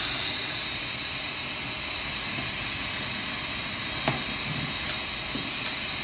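Steady hiss of oxygen flowing through a Pulmodyne oxygen-driven CPAP circuit, which runs off the tank's pressure with no separate machine. A few light clicks come from the mask being handled.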